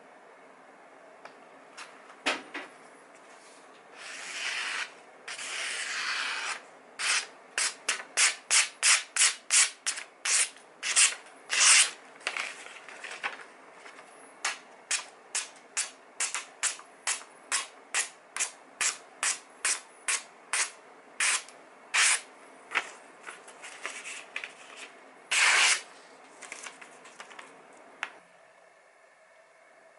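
Freshly sharpened kitchen knife slicing through a sheet of printed paper as a sharpness test: a quick run of short hissing cuts, about two a second, with a few longer drawn-out slices.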